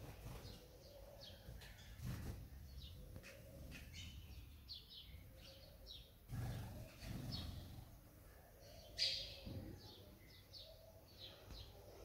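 House sparrow chirping: many short, high chirps, the loudest about nine seconds in, with a few low thumps among them.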